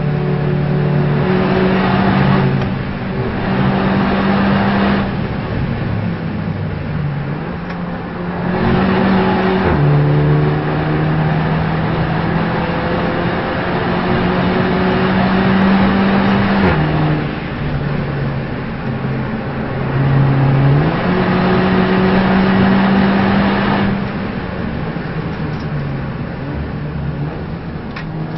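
Race car engine during a lap, holding steady notes that step abruptly up and down several times as gears are shifted, with a constant rushing noise above it.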